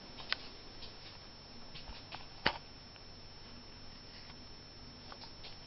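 Quiet room tone in a small room, broken by a few short, faint clicks: one about a third of a second in and a sharper one about two and a half seconds in.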